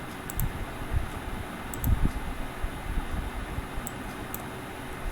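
Steady fan-like background hiss with irregular low thumps, and a few faint computer mouse clicks, some in quick pairs.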